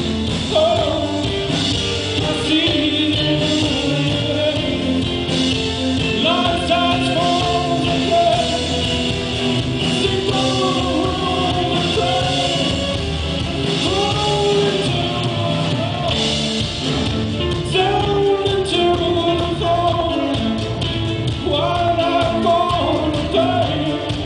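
Live band playing a rock song with lead vocals, over violin, electric and acoustic guitars and bass guitar.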